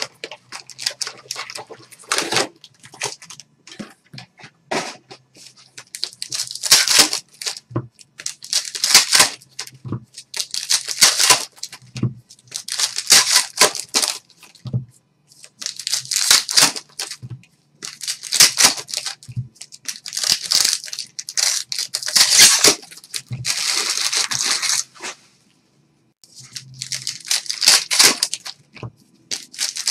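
Trading-card pack wrappers being ripped open one after another, a crinkly tearing sound every second or two.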